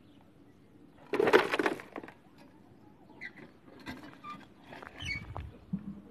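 Dirt and gravel scraped up by a homemade lever digger and tipped into a plastic toy dump truck's bed: a rattling burst about a second in, followed by scattered small clicks and a few faint high chirps.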